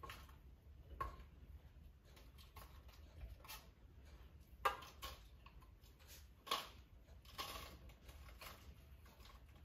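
Spoon scraping and tapping a bowl as crumbly biscuit base is scooped out and dropped into a small cake tin: a few soft, irregular scrapes and taps, the sharpest a little under halfway.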